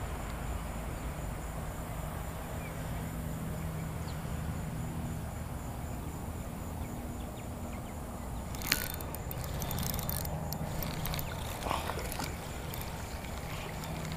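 Spinning reel being cranked to retrieve a lure, over a steady low rumble, with one sharp click about nine seconds in and a few fainter clicks after it.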